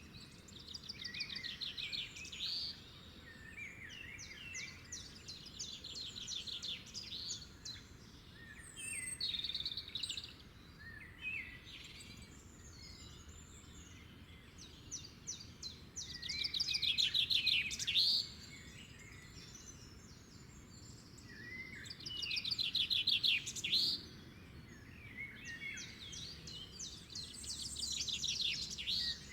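Songbirds singing: bursts of fast trilled song about two seconds long, each ending in a rising note, repeating every few seconds, with scattered softer chirps in between over a faint steady background.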